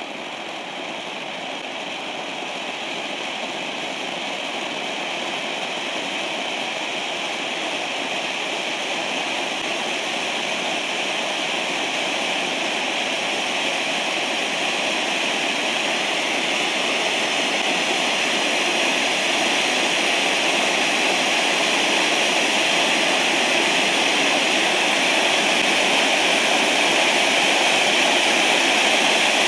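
Two TXF566 'Fountain Rain' gold firework fountains burning side by side, a steady hissing rush of sparks. It grows gradually louder as the fountains build up.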